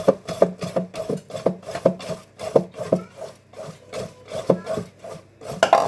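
Hand whisk beating cake batter in a bowl: a rhythmic scraping stroke about three times a second, with a louder clatter near the end.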